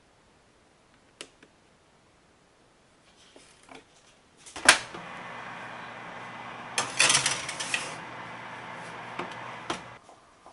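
A sharp clunk, then a convection oven's fan humming steadily while a metal sheet pan scrapes and rattles onto the oven's wire rack a few seconds later; two sharp knocks near the end.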